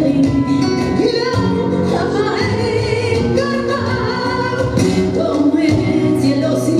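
Flamenco music for a cantiñas: a solo singer's voice in long, bending sung lines over guitar accompaniment.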